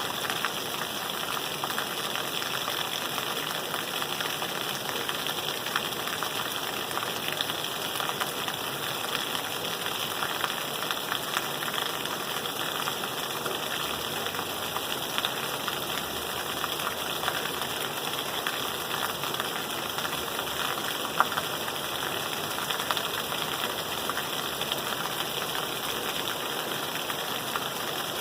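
Steady rain falling, with many small drop ticks in an even hiss.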